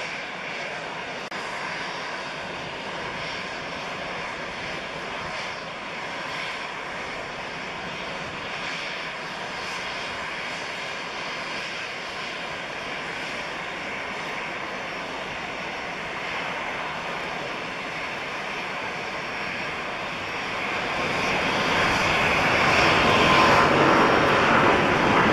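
Boeing 777-200ER's twin turbofan jet engines at takeoff power during the takeoff roll, a steady roar with a faint whine in it. About 21 seconds in it grows markedly louder as the jet lifts off and climbs toward the microphone.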